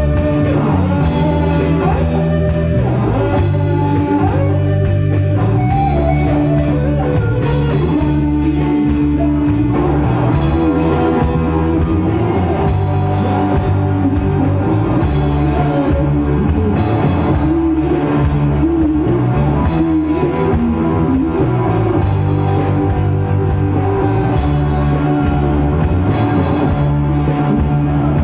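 Live rock band playing: electric guitars, bass and drum kit in a steady beat.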